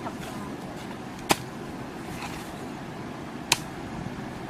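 A long-handled digging tool chopping into a mud-and-grass mound, two sharp strikes about two seconds apart, over a steady background hiss.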